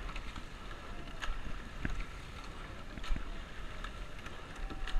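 Eight-oared rowing shell under way at race pace: oars clunking in their oarlocks about every two seconds, once per stroke, over water rushing along the hull and wind on the microphone.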